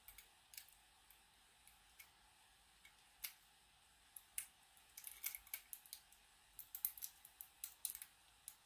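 Faint, scattered small metallic clicks and ticks of a Defiant rim cylinder's plug and shim being worked back into the cylinder housing, coming thicker in the second half. The plug is binding, which the owner puts down to one of the spool pins catching.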